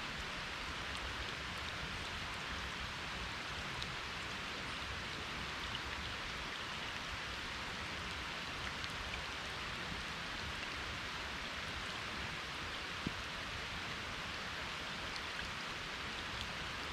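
Steady rain falling, an even hiss of drops, with one short click about thirteen seconds in.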